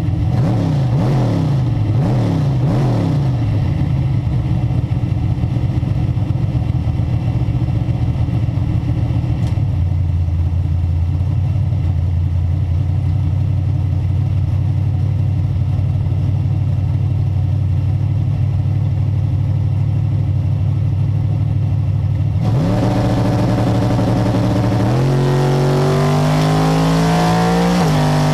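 Drag-race car engine heard from inside the cockpit: revved up and down in quick bursts during a tyre-smoking burnout, then running at a steady low note while the car stages. Near the end it launches at full throttle, the pitch climbing steeply and stepping up at two gear changes.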